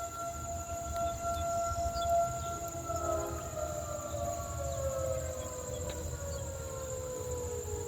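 Outdoor warning siren sounding a steady tone, then slowly winding down in pitch from about three seconds in.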